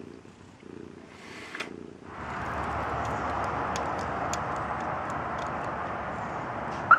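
A cat purring faintly, then, about two seconds in, a steady rushing outdoor noise. Near the end come two short, sharp beeps from a Viper two-way remote car starter fob.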